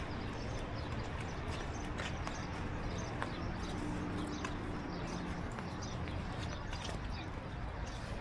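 Walking in the rain outdoors: footsteps and irregular sharp taps over a steady hiss, with a faint steady low hum underneath.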